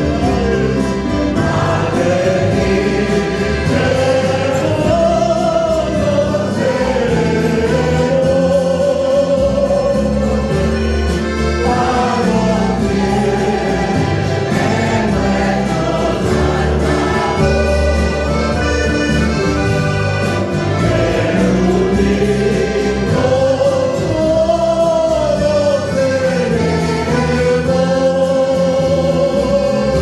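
Church choir singing a hymn in long, held phrases, accompanied by acoustic guitar.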